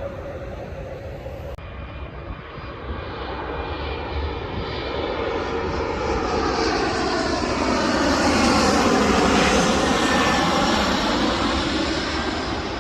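Jet airliner on final approach flying over, its engine noise swelling to a peak about eight to ten seconds in, the whine falling in pitch as it passes.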